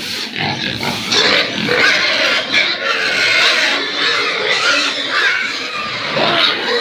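Many pigs calling at once, their voices overlapping in a loud, continuous din that grows louder about a second in.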